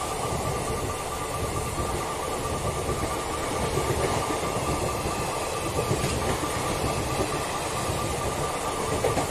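Passenger coaches of an Indian Railways Intercity express rolling past, their wheels running on the rails in a continuous rumble, with a thin steady high whine over it.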